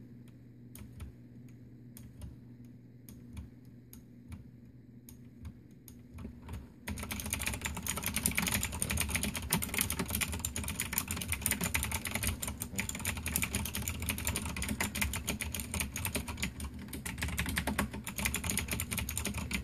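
Typing on a Cherry G80-3497 mechanical keyboard with Cherry MX Blue clicky switches: slow, separate keystrokes at first, then fast continuous typing, much louder, from about a third of the way in.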